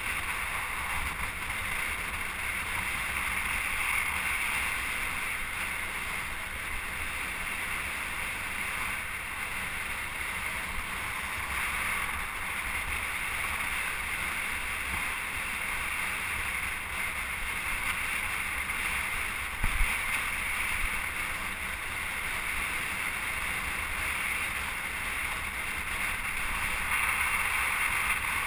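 Steady rush of wind noise on the microphone over a low rumble, with one brief knock about twenty seconds in.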